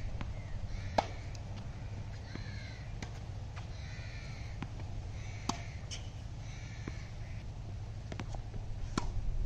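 Tennis ball struck by a racket in a rally: sharp pops about a second in, about halfway through and near the end. Between them a bird calls over and over, about one call every second or so, over a steady low rumble.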